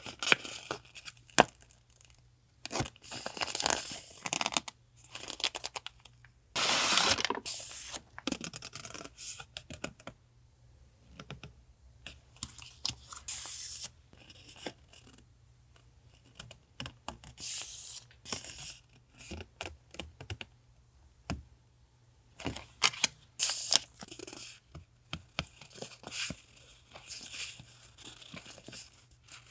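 Paper being torn, crinkled and handled for a collage journal: irregular rips and rustles with sharp little taps and clicks, the longest and loudest tear about seven seconds in.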